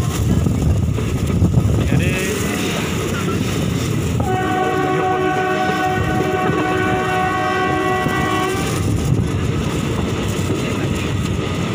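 Passenger train running along the track, heard from the open door of a moving coach as a steady low running noise. About four seconds in, the locomotive's horn sounds one steady blast lasting about four seconds.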